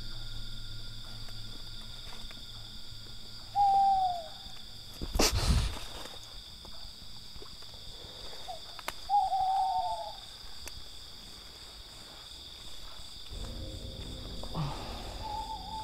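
An owl gives short hoots several times, each a single note that arches down in pitch, over a steady shrill of night insects. A short rustling noise comes about five seconds in.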